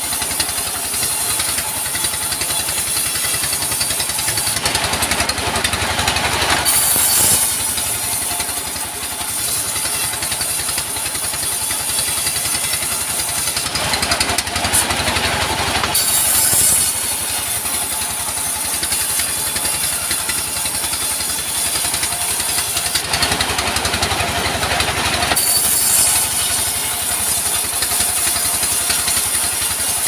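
Diesel engine driving a sawmill bandsaw, running steadily, with the blade sawing through timber in three louder passes about nine to ten seconds apart.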